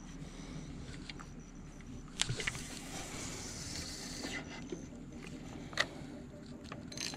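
Spinning rod and reel being handled: a quick rattle of clicks about two seconds in, a soft hiss for about two seconds after, and one sharp click near six seconds.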